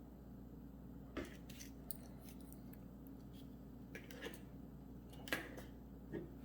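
Small hand tools snipping and clicking while working an electrical wire: a handful of sharp, irregular clicks, the loudest about five seconds in, over a steady low hum.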